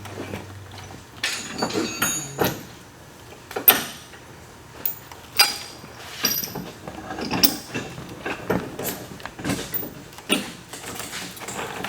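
Irregular clanks and knocks of tools and metal parts being handled while a portal gear box is bolted onto a side-by-side's suspension, a sharp hit every second or so.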